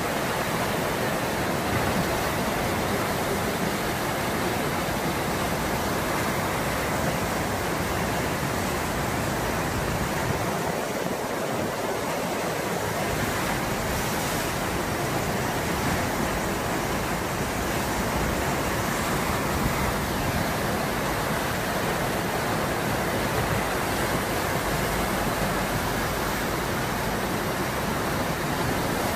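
Standing river wave: fast water churning into white water, a steady, unbroken rush.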